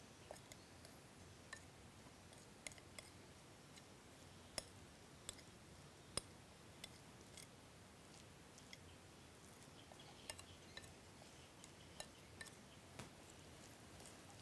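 Faint, irregular light clicks and taps of a small utensil against a ceramic plate while minced spring roll filling is mixed.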